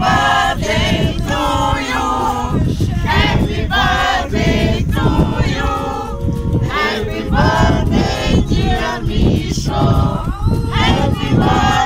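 A group of people singing together without instruments, voices holding and bending long notes, over a low rumbling noise.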